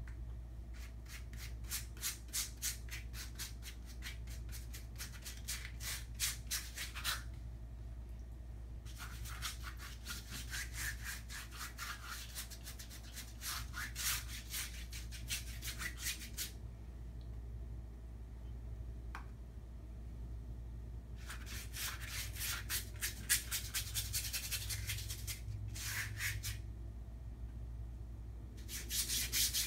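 A paintbrush scrubbing acrylic paint across a large sheet in rapid back-and-forth strokes, several a second. The strokes come in runs of several seconds with short pauses between, over a steady low hum.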